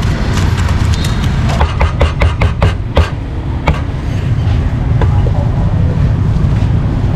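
A cleaver chopping meat on a wooden board: a quick run of about ten strikes, then a few single strikes spaced out. A steady low rumble of street traffic runs underneath.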